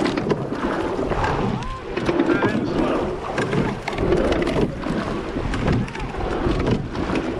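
Racing rowing eight under way: water rushing past the hull and wind buffeting the microphone, with a swell of oar and water noise at each stroke, about one every two seconds.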